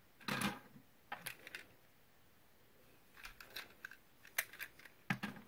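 Packaging and small parts being handled on a table: a series of short, light rustles and clicks, several of them sharper near the middle and toward the end.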